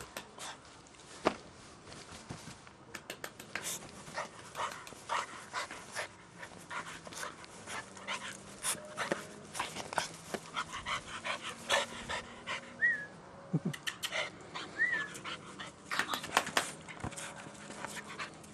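Staffordshire bull terrier puppy panting as it plays with a ball, amid a steady run of irregular sharp clicks and knocks. Two short high squeaks come in the second half.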